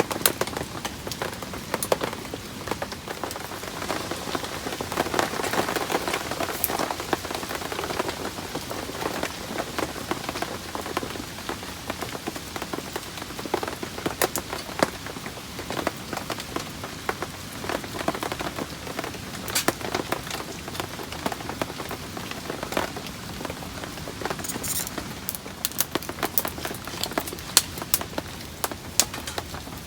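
Heavy rain falling steadily, with many sharp individual drop ticks, briefly heavier a few seconds in. A run of sharper clicks comes near the end.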